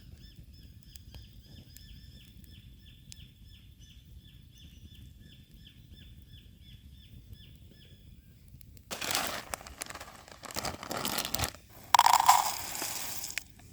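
A high chirping call repeated steadily, about two or three short falling notes a second, for the first eight seconds or so. About nine seconds in, loud crinkling and crumpling noises start in several bouts, the loudest about twelve seconds in.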